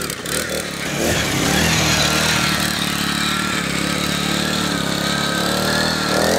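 Small 49cc four-stroke engine of a motorized cooler running on throttle as the cooler pulls away, with a wavering whine over the engine note. It gets louder about a second in and holds steady after that.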